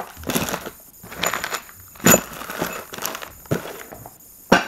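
Bagged metal mounting-kit hardware and a cardboard box being handled, then the box flaps folded shut. The sound is crinkling plastic, clinking parts and cardboard scraping, with several sharp knocks: the loudest is about two seconds in, and another comes just before the end.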